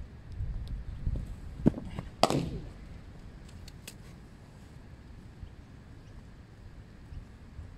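Cricket ball impacts in a batting net: two sharp knocks about half a second apart, the second louder with a short ringing tail, followed by a few faint clicks.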